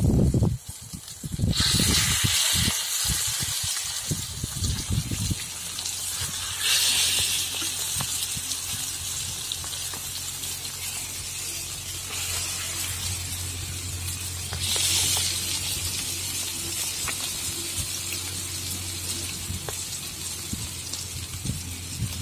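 Pomfret fish shallow-frying in oil on a flat iron tawa, sizzling steadily. The sizzle surges louder three times, about a second and a half in, about seven seconds in and at about fifteen seconds, as each fish is laid into the hot oil.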